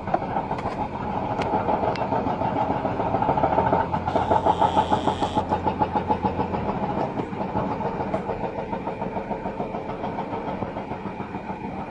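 Diesel engine of a piece of heavy construction machinery running with a rapid, rhythmic pulse. It grows louder toward the middle, then eases off.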